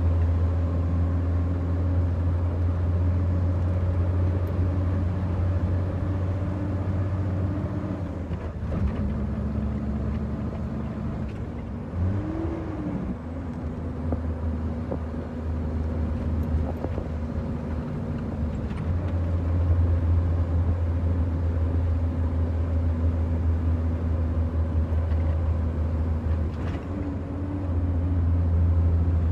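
Heavy diesel dump truck's engine heard from inside the cab while driving, a steady low drone. Its note drops about a third of the way in, briefly rises and falls near the middle, and comes back stronger later, as the driver works through the gears.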